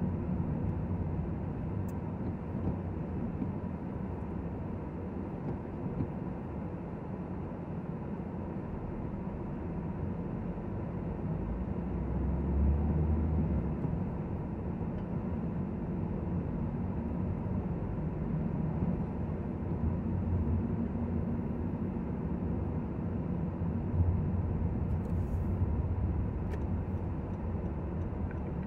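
Car engine and tyre noise heard inside the cabin while driving slowly through town, a steady low rumble that swells a few times.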